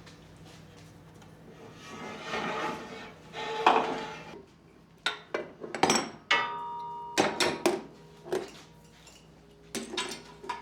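Steel parts scraping, then a series of sharp metal clanks and knocks as the hydraulic cylinder is worked out of a tube bender's frame. One clank rings briefly, about six and a half seconds in.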